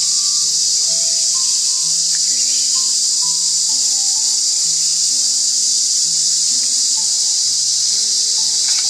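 Insect chorus, a loud, even, high-pitched buzz with no breaks, with soft background music of held notes underneath.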